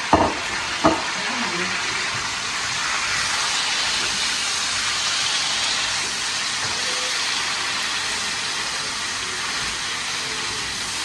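Mutton and tomatoes sizzling in a hot karahi, a steady hiss that swells for a few seconds in the middle, with two sharp knocks near the start. The braising water has cooked off, so the meat is now frying in its own fat.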